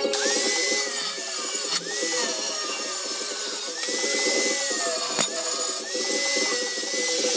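Angle grinder grinding metal, a loud running whine that sags in pitch and recovers about three times as the disc is pressed into the work.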